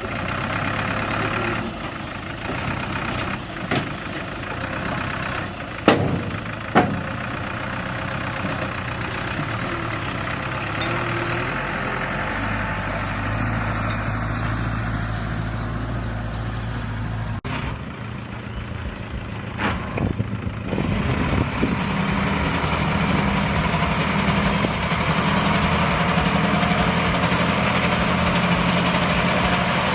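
Heavy diesel engines of earthmoving machinery running at low revs, with two sharp knocks about six seconds in. The sound changes abruptly past the middle, and the engine noise grows louder over the last third.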